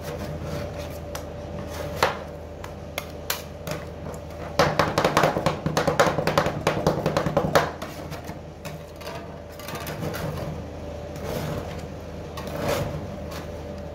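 Two metal spatulas scraping and chopping ice cream mix on a stainless-steel cold plate for rolled ice cream, with a fast run of chopping taps about five seconds in that lasts some three seconds. A steady low hum runs underneath.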